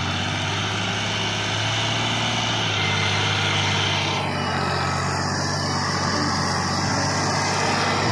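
Diesel farm tractor engine running steadily under load, towing a tillage implement through soil.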